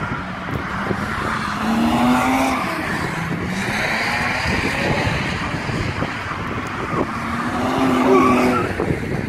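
Drift cars out on track, engines revving with rising and falling pitch that peaks about two seconds in and again near the end, over the squeal of tyres sliding.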